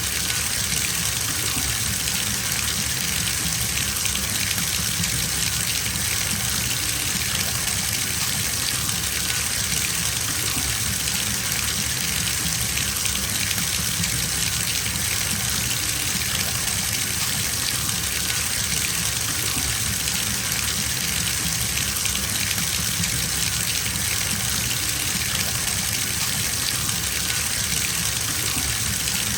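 Bathtub filling from its tap: a steady gush of running water splashing into the tub, even and unchanging.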